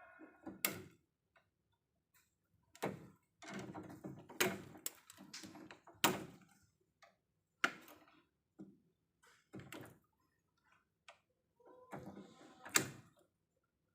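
Work at an electrical distribution panel: irregular sharp clicks and knocks, about a dozen, with short scraping and rustling between them around three to six seconds in.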